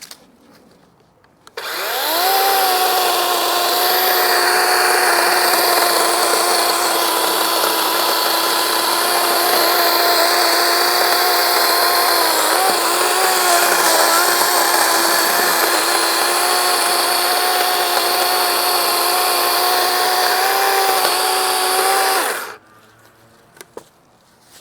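DeWalt 20V Max XR brushless cordless chainsaw spinning up with a rising whine about a second and a half in, then running steadily as the chain cuts through a fresh oak log. Its pitch wavers briefly midway under load, and it winds down near the end.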